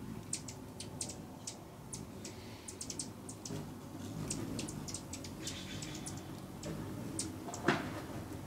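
Hummingbirds at feeders: many short, high chip notes at an irregular pace over the low hum of their wings, with one brief louder sound near the end.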